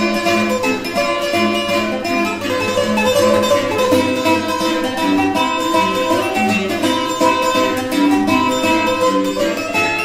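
Background music played on plucked string instruments, guitar-like, with a steady stream of short picked notes.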